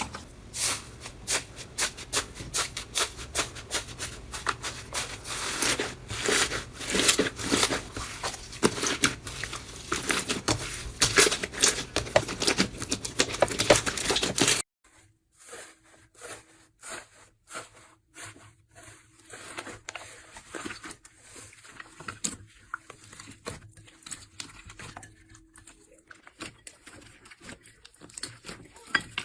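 Slime being squeezed and poked by hand, with dense crackling and popping clicks. About halfway through it cuts abruptly to a quieter clip with sparser pops.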